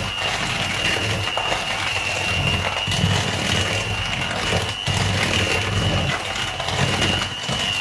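Electric hand mixer running steadily with a constant high motor whine, its beaters churning margarine and brown sugar in a plastic bowl as they are creamed until light and fluffy.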